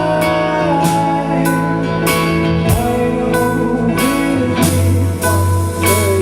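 Band music: an instrumental passage with guitar carrying held notes over a steady drum beat, no singing.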